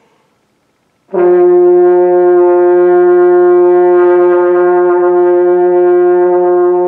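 French horn playing one long, steady held note that starts about a second in and holds without wavering to the end.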